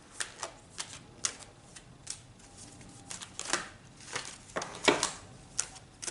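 Tarot cards being handled and laid down on a table: a string of irregular sharp taps and snaps, the loudest about five seconds in.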